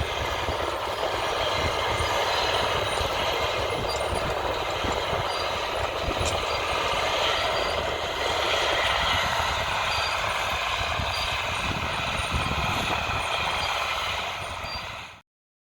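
Large diesel farm tractor running steadily under load, a low engine rumble with continuous mechanical clatter. It cuts off suddenly near the end.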